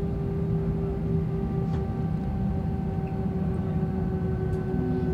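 Cabin noise inside a jet airliner taxiing after landing: the steady hum of the engines at idle over a low rumble, with several constant tones held throughout.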